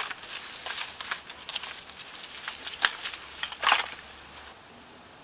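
Irregular crackling, snapping and knocking of sticks and brush being moved by hand, stopping about four and a half seconds in.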